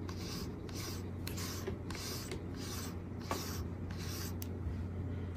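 Wire-pin slicker brush raked through a cat's fur in repeated scratchy strokes, about two a second, over a steady low hum.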